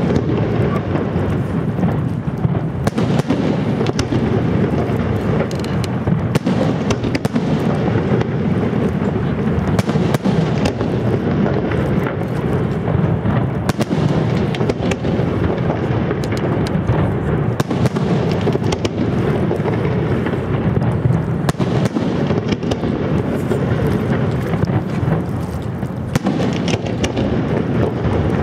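Fireworks display at full barrage: many shells bursting in quick succession, their bangs and crackle merging into a steady, loud rumble with no pause.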